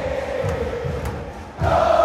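Football crowd chanting in unison over a steady drum beat. The singing swells louder and higher about one and a half seconds in.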